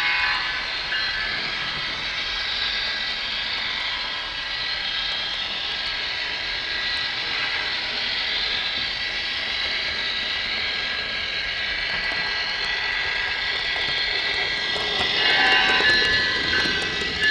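Model train rolling along its track: a steady high rushing of small metal wheels on the rails with a faint motor whine. It gets louder near the end as the train runs into a tunnel.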